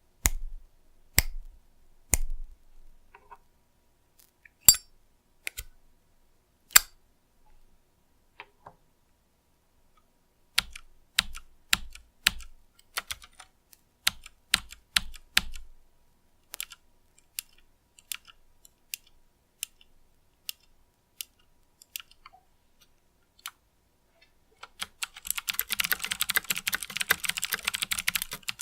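Mechanical keyboard with clicky Cherry MX Green switches: single keystrokes with sharp clicks, some with a low thud as the key bottoms out, then rapid continuous typing near the end.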